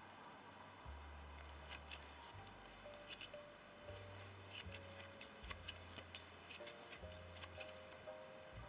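Faint, soft background music: low notes shifting about once a second under a few held higher notes, with scattered faint ticks.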